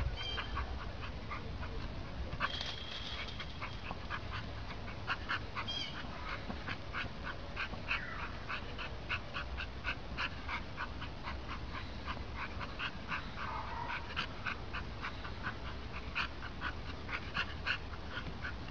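A dog panting in quick, regular breaths, with a couple of short whines.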